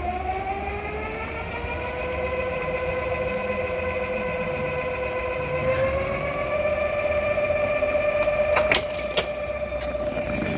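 Greyhound track's mechanical hare (lure) running along its rail, an electric whine that climbs slowly in pitch and then holds steady as it passes the traps. Near the end come a few sharp bangs as the starting traps spring open.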